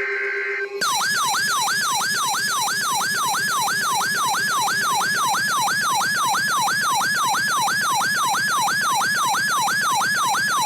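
The end of a buzzing digital data burst of an alert header. Then, about a second in, a loud electronic siren-style alert tone starts: a whooping yelp that sweeps quickly up and falls back down, about three times a second, marking the start of a new emergency alert.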